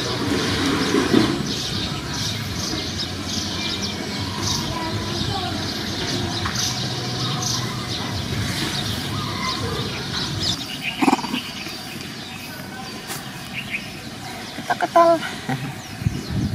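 Outdoor background of birds chirping and faint distant voices, with a few short, squeaky pitched calls about two-thirds of the way through and again near the end.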